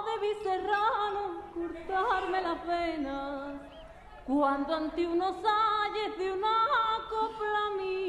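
A Spanish copla: a woman singing an ornamented, wavering melody with strong vibrato, in two long phrases with a short break halfway, the recording thin with little treble.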